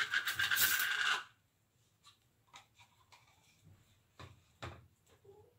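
Rapid metallic clinking of kitchenware for about the first second, then stops. A few scattered light taps and knocks of handling dishes follow.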